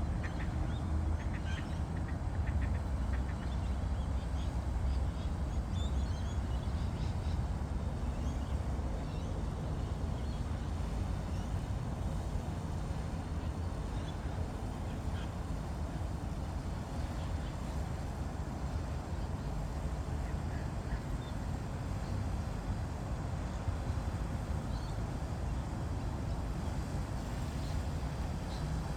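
Birds calling in short, scattered notes over a steady low rumble, with a few quacking calls in the first couple of seconds.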